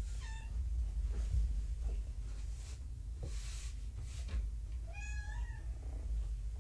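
Young domestic kitten meowing twice: a short call right at the start and a longer, wavering meow about five seconds in.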